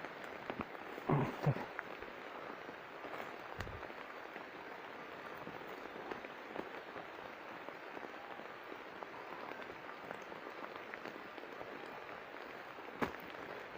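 Digging in forest soil and dry leaf litter: a steady crackling rustle of earth and leaves being turned over, with a single dull thump about four seconds in.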